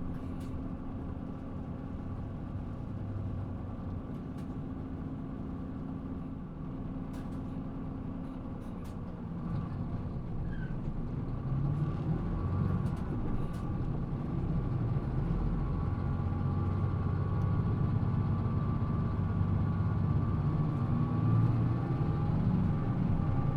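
Mitsubishi Fuso PA-MK25FJ city bus heard from inside the cabin, its diesel engine running at low revs with a steady drone. The engine gets louder about ten seconds in and again a couple of seconds later, then the sound fades out at the end. The recordist tags this bus as a low-revving one with an odd noise.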